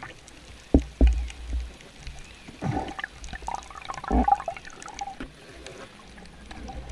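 Underwater sounds picked up by a submerged camera during a night spearfishing dive: two sharp knocks about a second in, then muffled gurgling and bubbling with a few dull thuds.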